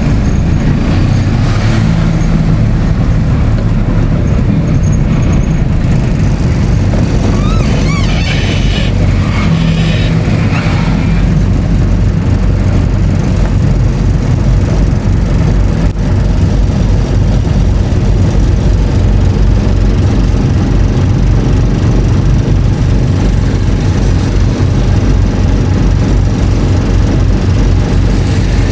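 Steady engine and road noise of a vehicle being driven, loud and continuous, with a few brief higher sounds about eight to ten seconds in.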